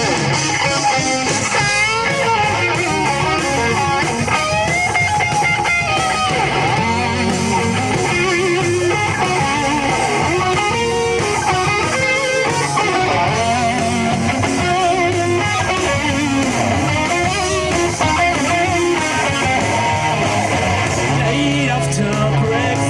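Rock band playing live, an instrumental passage led by electric guitar over the full band.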